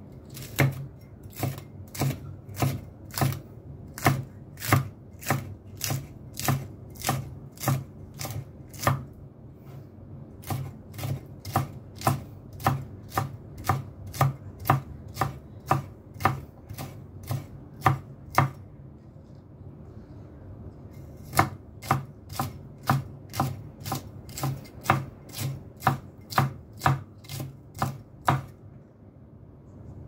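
Knife chopping green chili peppers on a cutting board, in steady strokes about two a second, with a pause of about three seconds past the middle before the chopping resumes.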